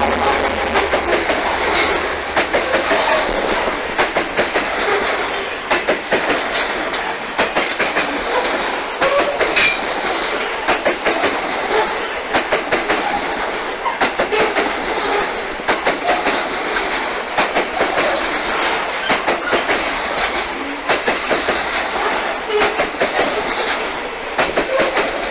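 Grain hopper wagons of a freight train rolling past right beside the track: a continuous rumble of wheels on rail with repeated clickety-clack, the wheels striking in quick groups as each wagon's wheelsets cross the rail joints.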